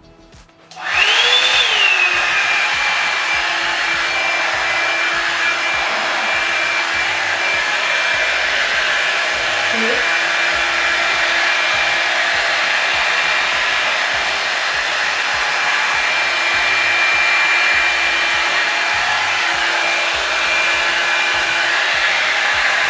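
Revlon One-Step hair dryer brush switched on about a second in, on its low setting: the motor's whine rises briefly, then settles into a steady rush of air with a high whine.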